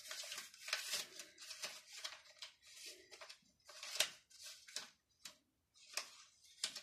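Gift-wrapping paper rustling and crinkling in irregular bursts as a wrapped package is opened by hand, with one sharper crackle about four seconds in.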